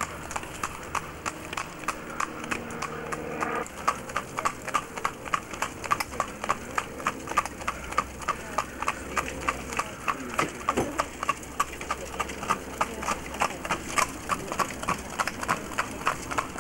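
New Forest pony's hooves clip-clopping on a tarmac lane in a quick, even rhythm as it trots pulling a light carriage.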